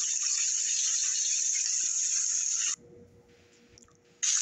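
Bacon sizzling in a frying pan, a steady hiss that cuts off suddenly about two-thirds of the way through, drops to near silence, and starts again right at the end.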